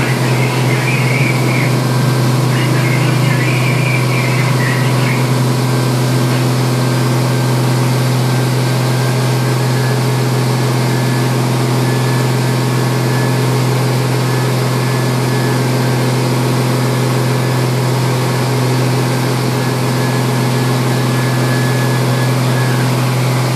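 Steady drone of heavy machinery running, with an even hiss over it and no change in pace.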